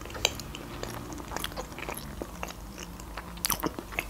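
Mouth chewing a bite of sushi with the lips closed: a run of short, soft mouth clicks and smacks, loudest about three and a half seconds in.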